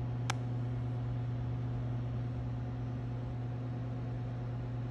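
Steady low hum with a faint hiss, the even drone of a room's ventilation fan or electrical equipment. There is one short, sharp click about a third of a second in.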